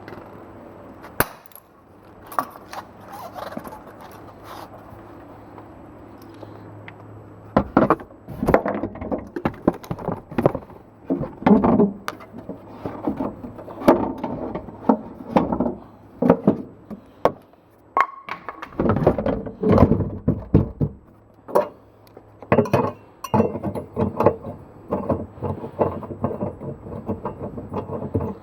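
Irregular knocks, clunks and clatter of hands-on tyre work, with a steady low hum in the first few seconds; the knocking gets busier and keeps going from about a quarter of the way in.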